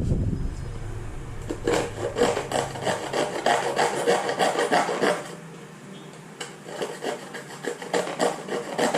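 Rapid, uneven rubbing strokes, easing off briefly about six seconds in.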